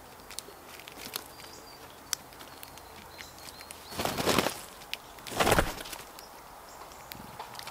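Wingbeats of a blue jay taking off: two short, loud whooshes about four and five and a half seconds in. Faint high bird chirps and light ticks sound earlier.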